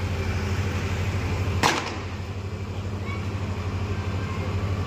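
A steady low mechanical hum with an even pulse, like an engine running, and one sharp crack about a second and a half in.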